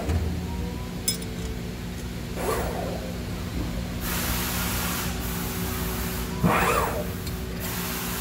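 CNC press brake running with a steady hum while bending small sheet-metal brackets. A short whir swells and fades about two and a half seconds in and again about six and a half seconds in as the machine cycles, with a hiss in between and light clinks of the metal part.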